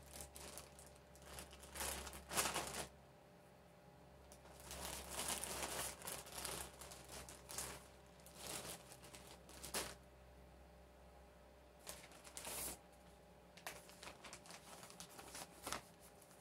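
Plastic zip-top bags crinkling and rustling as they are handled, in irregular bursts, the loudest about two seconds in and again around five to six seconds in.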